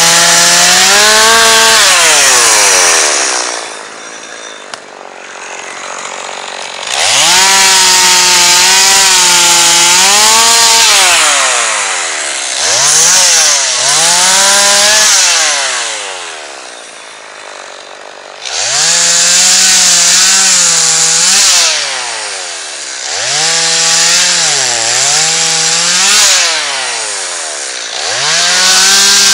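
Chainsaw cutting through a fallen tree trunk: the engine runs at high revs in each cut, its pitch sagging as the chain bites into the wood, then drops back toward idle between cuts, several times over.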